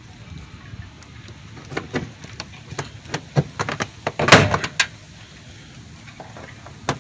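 Plastic trim clips of a Chevy Tahoe's inner door panel being pried and popping loose from the door, a string of scattered clicks and knocks with the loudest about four seconds in.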